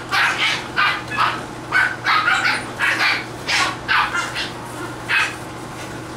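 English Bulldog puppies yapping: a rapid run of short, high-pitched yaps, two or three a second, stopping about five seconds in.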